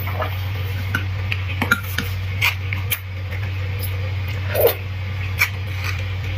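Close-up eating sounds of a person chewing roasted bone marrow: soft wet mouth sounds and smacks, with a few small clicks as a spoon works at a marrow bone, over a steady low hum.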